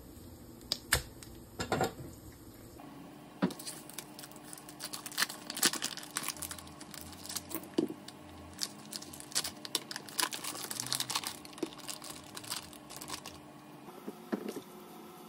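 Plastic film packaging of ground bison crinkling and tearing as it is peeled open by hand, a fast run of short crackles. A couple of sharp knocks come in the first two seconds.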